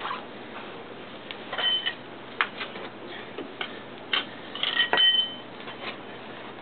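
Metal tools and parts being handled during motorcycle rear-wheel work, making scattered clinks and knocks. Two of the strikes ring briefly like struck metal, one about a second and a half in and the loudest near five seconds.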